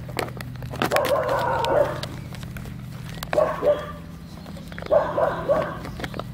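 Eight-week-old Kooikerhondje puppies barking in play as they wrestle, in three short bursts: about a second in, around the middle, and near the end.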